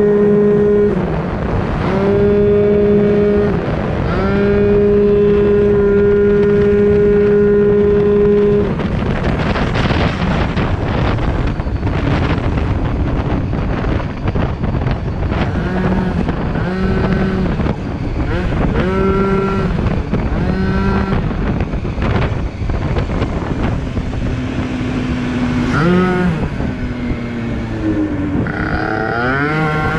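Yamaha Aerox two-stroke scooter engine with a steel-bore Polini Corsa 70cc kit, running hard at high revs under throttle. For the first several seconds it holds one high note, broken by two short dips. It then falls off to short blips of revs and rises back to the high note near the end, with wind rushing on the microphone.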